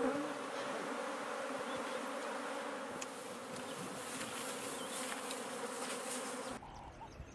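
A swarm of honeybees buzzing, a dense steady hum. It cuts off abruptly about six and a half seconds in, and faint bird chirps follow.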